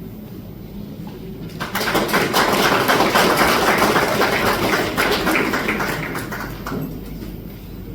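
Audience applauding, the clapping breaking out about a second and a half in and dying away near the end.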